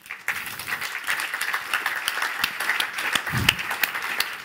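Audience applauding, starting suddenly just after a talk has ended.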